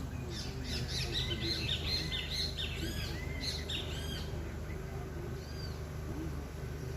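A bird calling in a quick run of short, arched, high notes for about four seconds, followed by a single note a little later.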